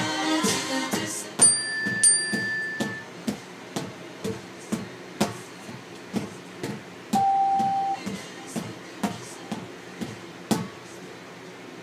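The pop song ends about a second and a half in. Then drumsticks strike fitness balls in a steady beat of about two hits a second, growing weaker until they stop near the end. A few short, held electronic tones sound over the first hits and again midway.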